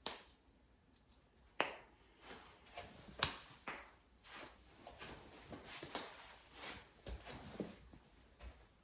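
A person cracking their own joints: several sharp pops spread through, among rustling from body movement and clothing.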